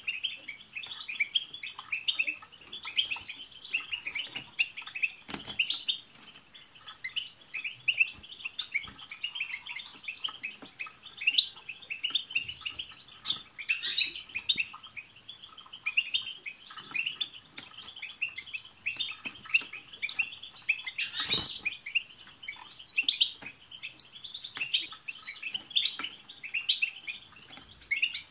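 A group of European goldfinches twittering and chattering: a dense, continuous run of quick chirps and trills, with short high thin notes mixed in.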